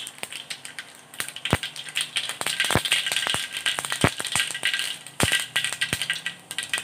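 Mustard seeds popping and spluttering in hot oil, many irregular sharp pops over a steady crackle: the seeds being tempered at the start of the dish.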